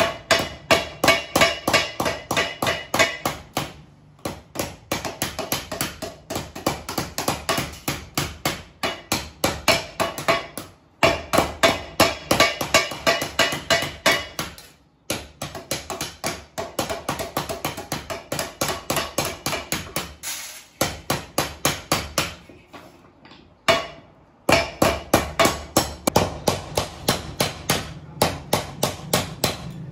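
Wooden mallets beating thin sheet-metal ice cream mould cones into shape. Steady strikes about three a second, each with a short metallic ring, broken by a few short pauses.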